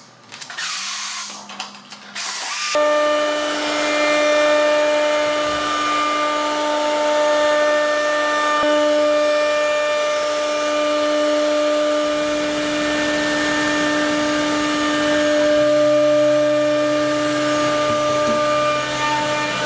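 HTM1325 CNC router spindle running at a steady speed: a steady whine with several constant tones. It starts abruptly about three seconds in, after a few short handling knocks. A lower steady hum joins near the end.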